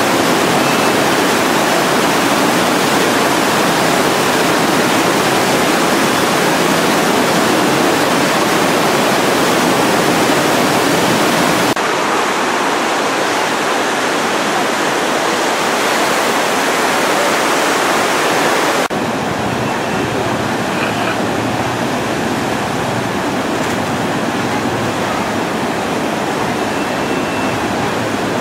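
The Ganges in flood: a wide torrent of floodwater rushing loudly and steadily. The sound drops abruptly in level about 12 seconds in and again about 19 seconds in, where the footage cuts to another view of the river.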